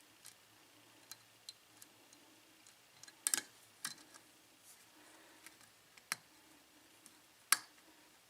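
Sharp little metallic clicks of a lock pick working the pins of a Yale 6-pin pin-tumbler lock during single-pin picking: irregular single ticks, with a loud cluster about three seconds in and sharp clicks near six and seven and a half seconds. The clicks are the pick and pin stacks giving feedback as pins are lifted toward the shear line under light tension.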